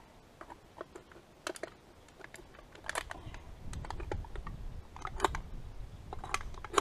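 Thin aluminium drink can crinkling and clicking as it is worked open with a knife to make a crawfish trap: irregular small clicks and crackles, with a few louder snaps about three and five seconds in.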